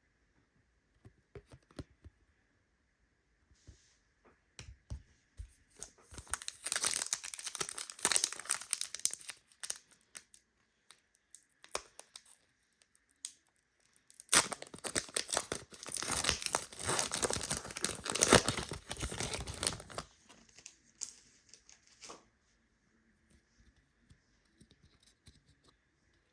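Panini Prizm basketball card pack wrappers being torn open and crinkled, in two long bouts about six and fourteen seconds in, with scattered light clicks around them.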